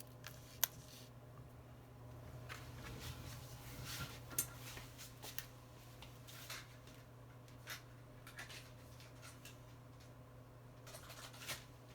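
Faint, scattered clicks and short light scrapes of small tools working on a phone's internal parts, over a steady low hum.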